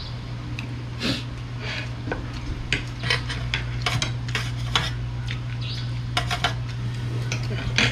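Spoons and forks clinking and scraping on plates during a meal, irregular short taps, over a steady low hum.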